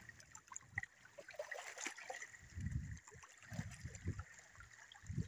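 Shallow seawater trickling and sloshing among rocks as someone wades through it, with a few soft low surges.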